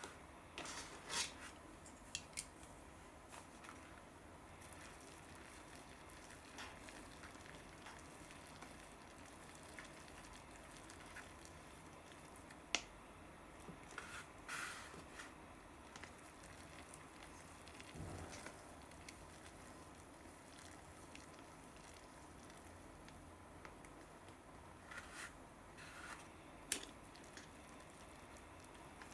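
Plastic chopsticks stirring instant cup noodles in their broth: faint soft wet stirring with scattered clicks and taps of the chopsticks and cups, a few of them sharper.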